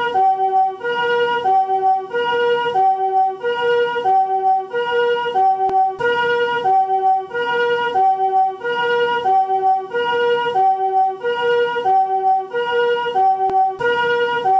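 Japanese ambulance's electronic two-tone siren of the newer chord-tone "comfort siren" type, each note a soft chord rather than a single pitch. It alternates steadily between a higher and a lower tone, about one high-low pair every 1.3 seconds.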